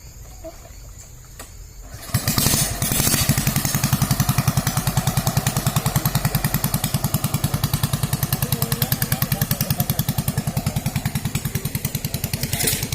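A big-bore motorcycle engine with a 92 mm piston fires up about two seconds in and settles into an even, loping idle beat. It is briefly revved near the end.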